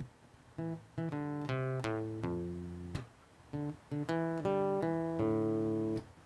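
Acoustic guitar picking an intro of separate notes and chords, each note struck and left to ring out, in short phrases with brief pauses.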